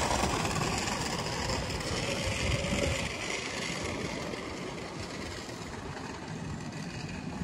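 Road traffic noise: a vehicle going by, loudest for the first three seconds, then easing to a steadier rumble of traffic.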